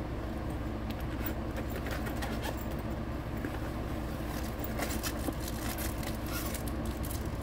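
Window air conditioner running with a steady low hum, under light rustling and scraping as a fabric cooler bag and its straps are handled.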